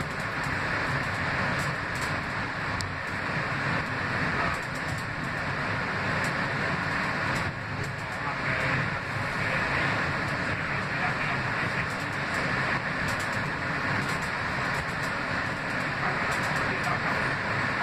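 Steady running noise inside a moving R160B New York subway car travelling at speed between stations.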